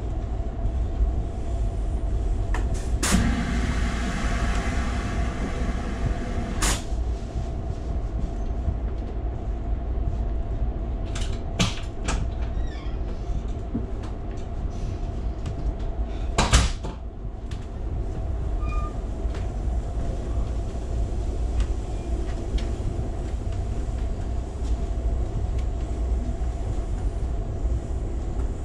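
Steady low rumble of an Amtrak passenger train car riding along the rails, heard from inside the car, with a faint steady hum. A few sharp clicks and knocks come through it, and a louder hiss runs between two of the clicks about three to seven seconds in.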